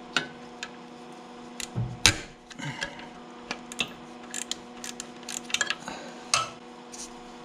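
Socket ratchet and combination wrench clicking and clinking on the alternator mounting bolt of a Kubota L2350 tractor, as the bolt is loosened so the loose fan belt can be tightened. A series of irregular sharp metal clicks sounds over a steady hum.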